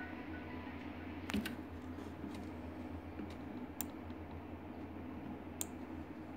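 A computer mouse clicking a few times, two quick clicks about a second in and single ones later, over a steady low hum.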